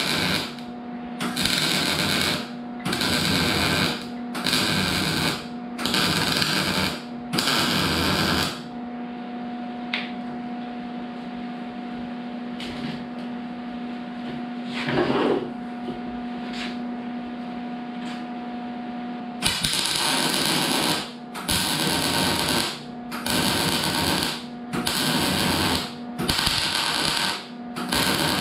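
MIG welder laying weld on a steel exhaust muffler in short bursts about a second long with brief gaps, the crackling buzz of the arc starting and stopping with each burst. Midway the welding pauses for about eleven seconds, leaving only a steady hum, then the bursts resume.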